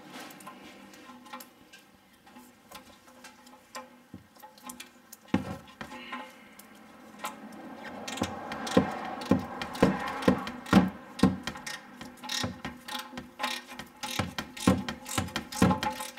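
Hand ratchet clicking as an oil drain plug is run back into the oil pan: scattered clicks at first, then rapid runs of ratcheting clicks from about halfway.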